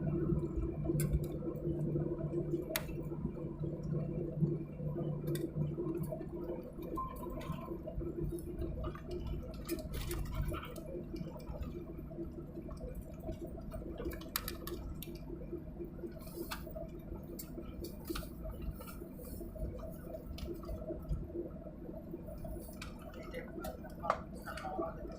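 Airliner cabin noise: a steady engine hum with scattered clicks and rattles.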